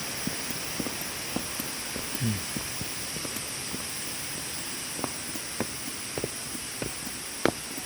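Footsteps walking, as a few irregular soft steps over a steady high hiss of background noise. One brief low sound falls in pitch about two seconds in, and the steps get louder near the end.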